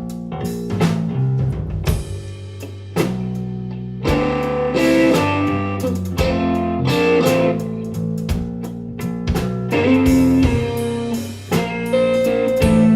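Live blues band playing an instrumental passage: electric guitar leading over bass guitar and a drum kit keeping a steady beat.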